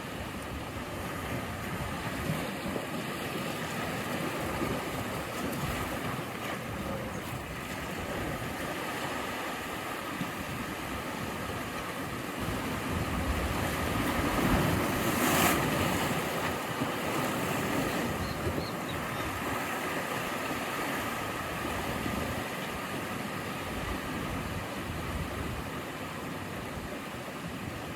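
Ocean waves washing onto the shore, a steady rush with one wave swelling to its loudest about halfway through before easing off.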